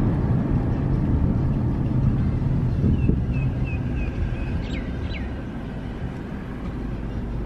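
Car's road and engine noise heard inside the cabin, a low rumble that eases off as the car slows down. About halfway through, a short run of high chirps and two quick falling notes sound over it.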